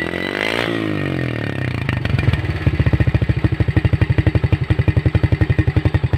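Yamaha Jupiter Z single-cylinder four-stroke engine running through a hollowed-out (bobok) muffler, which gives it a bassy note. It is blipped once near the start and falls back. From under halfway in it settles to an idle with an even, deep pulsing of about eight beats a second.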